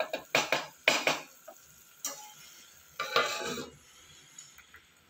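Wooden spoon scraping and knocking against a clay pot while stirring a thick onion-tomato masala, then a steel plate set down over the pot as a lid with a short metallic clatter about three seconds in.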